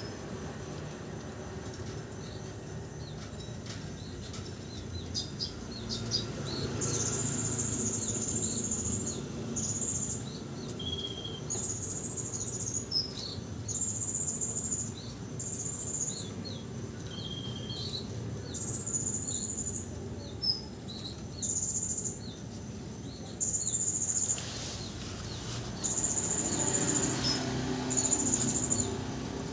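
Domestic canary singing: repeated high trilled phrases about a second long, with short chirps between. The bird is freshly through its moult and in full song.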